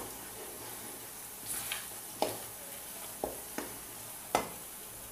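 Ground sambal chili sizzling as it fries in oil in a pan, with a stirring utensil knocking and scraping against the pan about six times.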